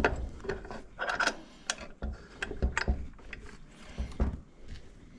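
Heavy bench vise being handled and shifted into place on a workbench: a series of irregular metal clunks and clicks.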